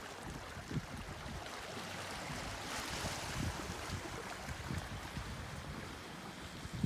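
Steady hiss of small waves washing over a rocky shoreline, with a light breeze and scattered soft low thumps on the microphone; the hiss swells briefly about three seconds in.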